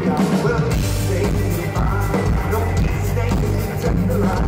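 Rock band playing live through a loud PA: a steady drum beat over bass and guitars, with some singing.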